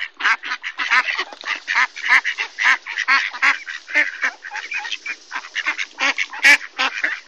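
A flock of mallard ducks quacking nonstop, short overlapping quacks coming several a second.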